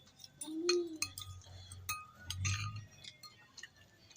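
Cutlery clinking against a bowl while eating, a series of light, irregular clicks. A brief low hum comes about half a second in, and a short breathy burst about two and a half seconds in.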